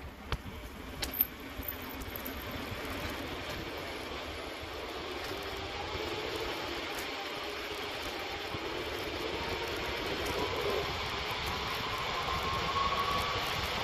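Vehicle driving along a road: steady engine and road noise that slowly grows louder, with a faint whine rising in pitch as it gathers speed. A few sharp clicks in the first couple of seconds.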